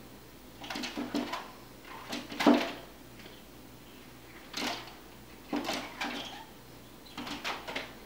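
Pileated woodpecker pecking at the patio window glass, attacking its own reflection: five short clusters of hard knocks on the glass, the loudest about two and a half seconds in.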